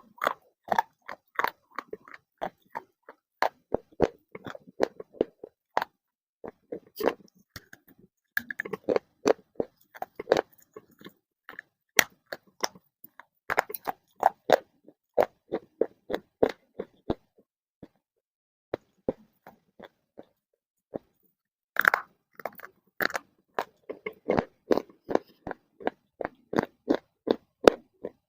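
Close-up crunching and chewing of hard baked clay pieces: rapid crisp crunches, several a second. They thin to a few isolated clicks for about four seconds midway, then resume.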